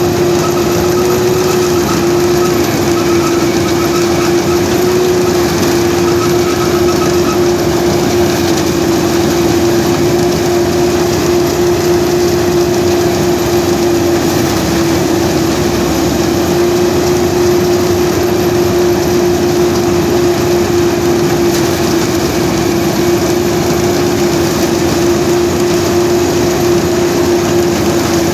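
Vishal 435 combine harvester running steadily as it cuts paddy: a constant loud engine and machinery noise with a steady hum.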